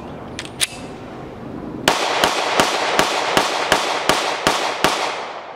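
Glock 43 9mm pistol firing rapidly: about nine shots in quick succession, roughly three a second, each with a ringing echo. A couple of light metallic clicks from handling the pistol come just before the string.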